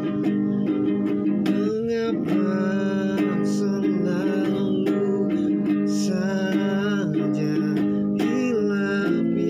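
A man singing a slow ballad while strumming and picking chords on an acoustic guitar.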